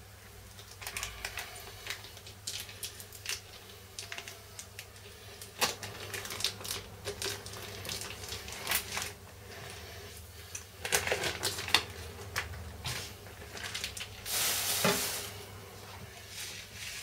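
Plastic wrapping being cut and pulled off a raw whole chicken: crinkling and rustling of the bag, with many scattered clicks and taps of the knife and bird on a plastic cutting board, and a longer rustle near the end.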